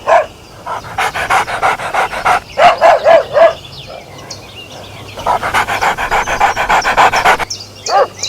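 A dog panting fast, about six breaths a second, in two bouts. A few louder, pitched, bark-like pulses come in the first bout.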